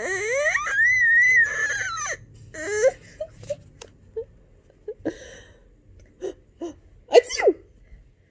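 A baby crying: one loud wail rising in pitch for about two seconds at the start, then a few short fussy sounds and a brief sharp cry about seven seconds in.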